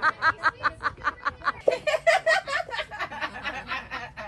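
Someone laughing hard in a long run of quick, evenly spaced bursts, about five or six a second, snickering and giggling.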